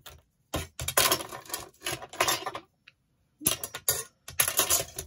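Long aluminium ruler scraping and clinking as it is slid and set down on a cutting mat and card, in two spells of about two seconds each with sharp clicks.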